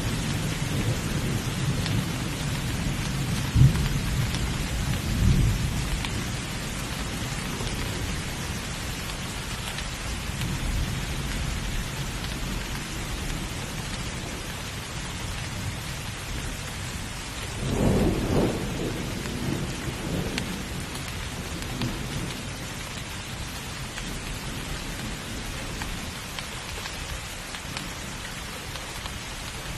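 Steady heavy rain in a thunderstorm, with thunder rumbling low in the first few seconds, two sharp cracks among it, and another roll of thunder about two-thirds of the way through.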